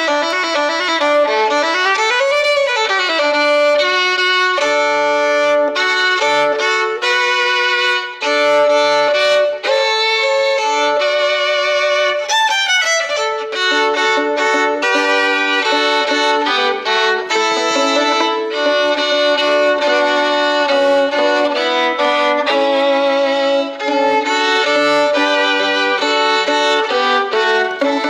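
Violin music from an Easter medley: a melody played on the violin, sliding up and down between notes in places, most clearly near the start and again about halfway through.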